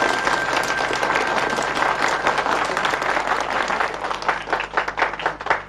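Audience applauding, the dense clapping thinning out to separate claps near the end.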